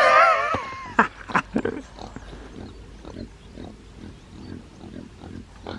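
Pig grunting softly and repeatedly, short low grunts about three a second.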